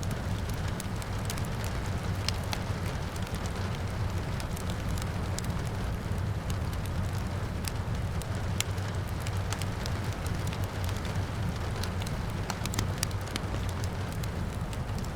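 Wood fire crackling, with irregular sharp pops and snaps over a steady low rumble, and rain falling in the background.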